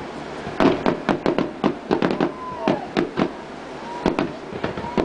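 Fireworks shells bursting in quick succession: an irregular string of sharp bangs and crackles, coming in clusters.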